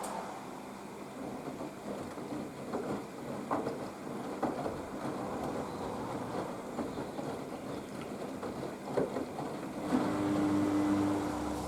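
Haier HWD 120 washer-dryer in the main wash: the drum turns with sloshing water and soft knocks of tumbling laundry. About ten seconds in, a steady motor hum starts and the sound grows slightly louder.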